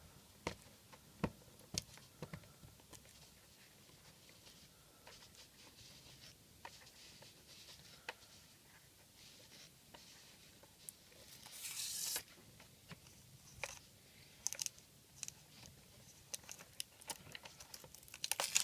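Light handling of a plastic welding helmet and its filter, with scattered small clicks and knocks. A brief crinkling, tearing sound comes about 11 seconds in, with more crinkling and clicking near the end, as the inner protective filter is worked loose.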